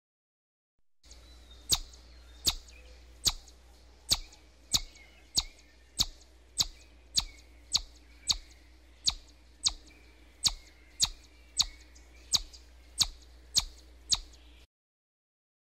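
Chipmunk giving a long series of sharp, high 'chip' calls, evenly spaced at about one and a half a second, over a faint steady low hum.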